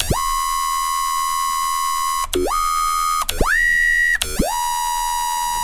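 Serum triangle-wave synth bass run through a downsampler and a frequency shifter, giving a ringing, metallic 'alien laser beam' tone. It plays four held notes, each swooping quickly up at its start. The second and third notes sit higher, and the fourth drops back lower.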